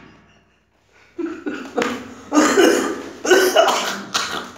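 A man laughing in about five separate bursts, starting about a second in.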